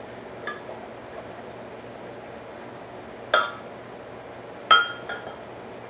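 A glass measuring cup clinking against the blender jar as sauce is poured in. There is a light tap about half a second in, then two sharp, ringing clinks a little past three seconds and near the end, the last one the loudest.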